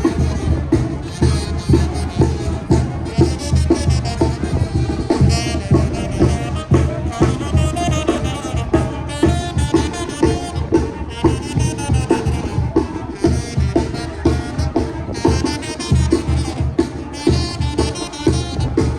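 Traditional band music: a drum beating a steady rhythm under wind instruments playing a melody.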